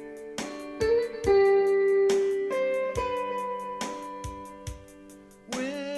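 Instrumental music led by a guitar, playing slow, sustained notes, each one struck fresh about once a second.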